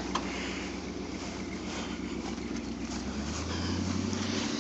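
Engine running at a steady idle, with a second, deeper engine note coming in about three seconds in.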